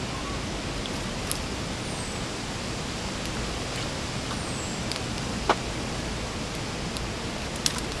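Steady outdoor background hiss with a few faint clicks. Two short, high, falling whistles about two and a half seconds apart.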